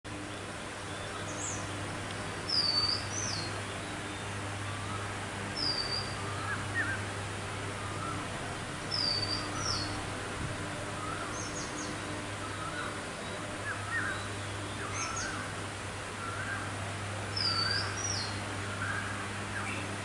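Birdsong: a short, high, whistled phrase ending in a quick curl, repeated every few seconds, with softer, lower chirps in between, over a steady low hum.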